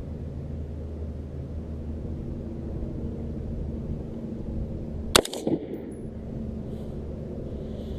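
A single gunshot about five seconds in, a sharp crack with a short echo trailing after it, over a steady low hum.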